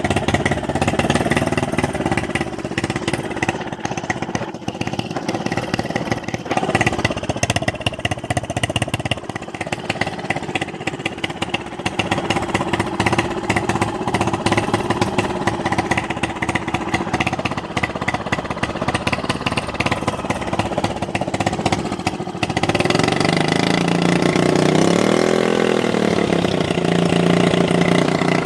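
Honda 2.3 hp air-cooled four-stroke single-cylinder outboard running with a rapid, even beat after a carburettor clean and adjustment, running well. About two-thirds of the way through the sound gets louder and steadier, and the pitch briefly rises and falls back.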